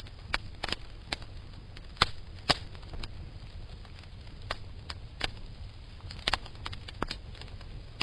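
Irregular sharp clicks and crackles, one to three a second and of uneven strength, over a steady low hum.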